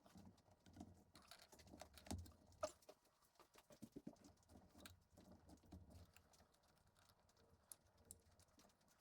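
Near silence with faint, scattered clicks and light taps of parts and tools being handled, the loudest a single click about two and a half seconds in.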